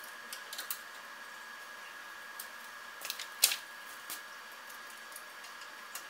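A few light clicks and clacks of aluminum extrusion rails being handled and set on a workbench, the loudest a sharp click about three and a half seconds in, over a faint steady hum with a high tone.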